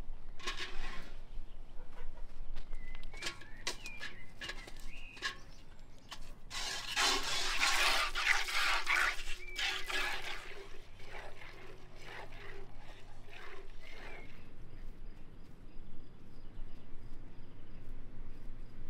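Milk being hand-squirted from a cow's teats in short, sharp jets, then a steady stream of fresh milk pouring into a galvanized metal bucket for about three seconds, the loudest part. Quieter outdoor sound follows, with bird calls.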